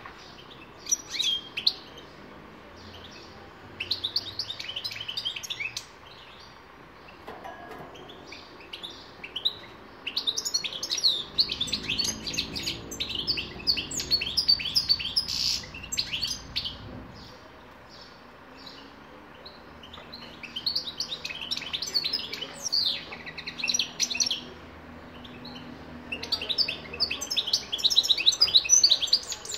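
European goldfinch singing: phrases of rapid, twittering high notes in bursts of a few seconds, with short pauses between them.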